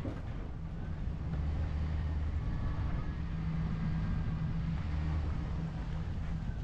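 Car engine and road noise heard from inside the cabin while driving: a steady low hum that grows a little louder about a second in.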